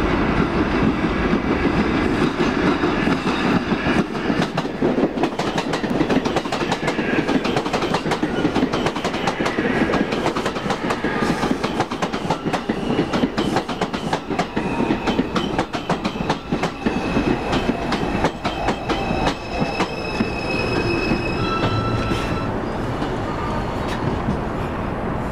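Bombardier R142 subway train pulling into an elevated station: wheels clacking over the rail joints as the cars run past, then a high electric whine from the propulsion as it brakes to a stop near the end.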